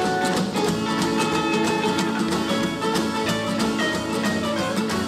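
1950s rockabilly band playing an instrumental guitar break: electric lead guitar over rhythm guitar, upright bass and drums.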